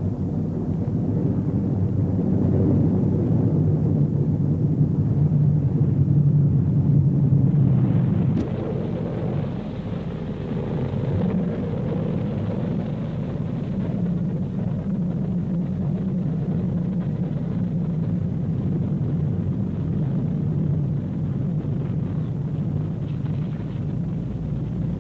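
Piston engines of a B-29 bomber droning steadily. The drone is louder for the first eight seconds or so, then settles a little quieter.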